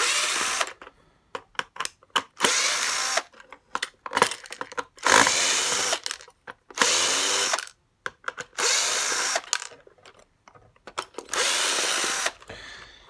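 Makita cordless drill-driver running in about six short bursts, each under a second, unscrewing the screws from the plastic case of an electric handwash water heater, with small clicks and rattles between the bursts.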